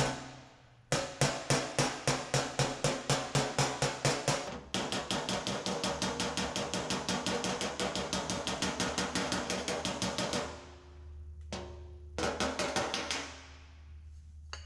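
Body hammer tapping rapidly on a steel car fender with a heavy dolly held behind the panel, about five light blows a second, working out the stretched eyebrow of a dent. The blows come in runs: a sharp run, then a longer softer one, a pause, and a short final run near the end.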